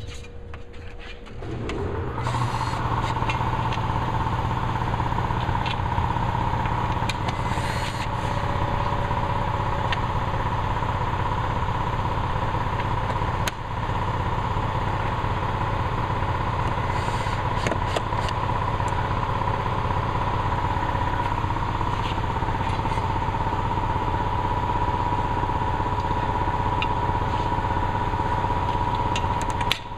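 A motor-driven machine starts up about a second and a half in and runs steadily, a low hum under a steady high whine, with one brief dip about halfway through.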